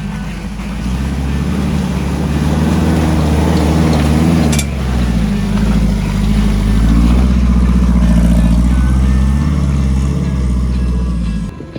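Off-road 4x4's engine revving, its pitch rising and falling several times, with one sharp click about halfway through. The sound cuts off suddenly near the end.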